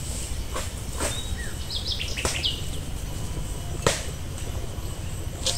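Birds chirping a few times around the middle, over a steady low rumble and a few sharp clicks.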